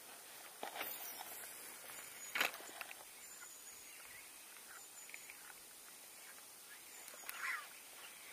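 Quiet outdoor ambience with faint bird chirps and a few sharp clicks and knocks, the loudest about two and a half seconds in.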